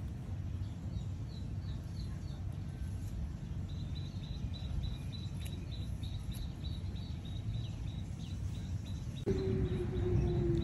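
Open-field ambience: a steady low rumble, with a rapid series of high-pitched chirps starting about four seconds in. Near the end a motor's drone comes in suddenly, its pitch slowly falling.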